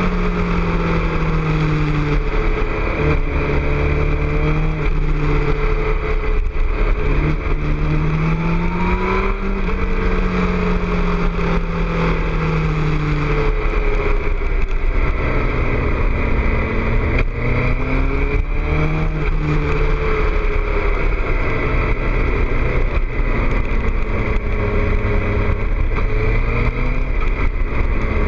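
2006 Suzuki GSX-R600's inline-four engine through a Two Brothers exhaust, its pitch repeatedly rising and falling as the rider rolls on and off the throttle through a run of curves.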